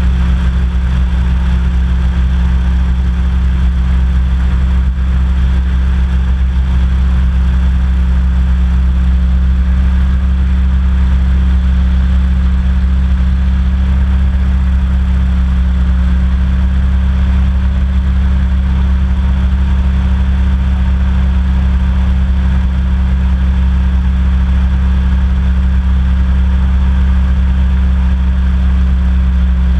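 Small personal hovercraft's engine and fan running at a steady speed while gliding over water, a loud, unchanging low drone heard close up from the hull.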